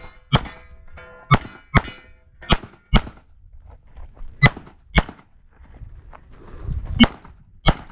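CZ 75 SP-01 pistol with a red-dot sight firing nine shots, mostly in quick pairs about half a second apart: two shots per target, as in a USPSA stage.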